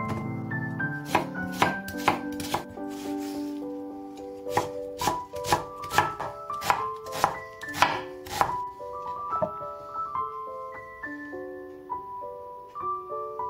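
Kitchen knife chopping food on a cutting board, a quick irregular run of strokes that stops about two-thirds of the way through. Light background music with a melody of short notes plays throughout.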